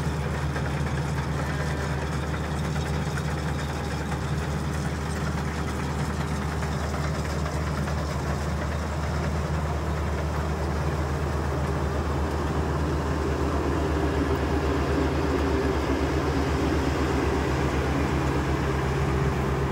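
Rice combine harvester running steadily as it works through the crop: a continuous deep engine hum with the drone of its threshing machinery. A higher steady whine grows stronger in the second half.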